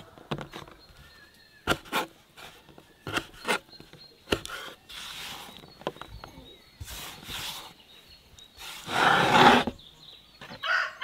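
Knife chopping dried apricots on a wooden cutting board, with a few sharp taps in the first four seconds. Hands then gather and scrape the sticky pieces across the wood, with the loudest rustling scrape about nine seconds in.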